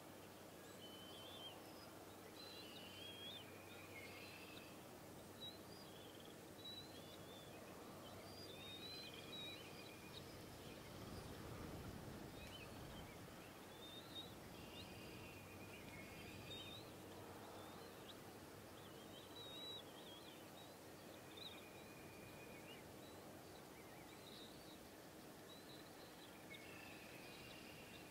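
Faint outdoor ambience with scattered high bird chirps and short trills, and a brief low rumble around the middle.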